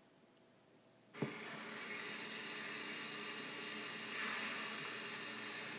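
Steady hiss from old videotape audio played through a TV speaker. It cuts in with a click about a second in, after near silence.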